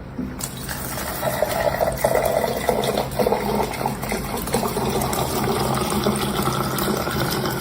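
Water running steadily, a continuous rushing splash.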